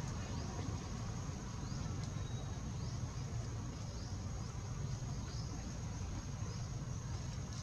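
Steady outdoor background noise: a low rumble with faint, short, rising high-pitched chirps repeating through it.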